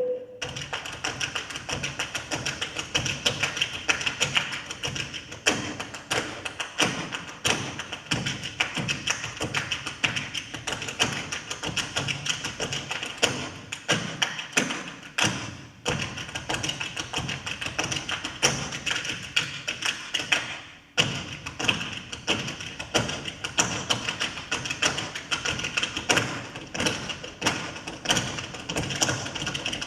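Dancers' feet tapping and stamping on the floor in a fast, dense, continuous rhythm, with no music behind them: the dancers' footwork is the score. The tapping thins out briefly about halfway through and again about two-thirds in.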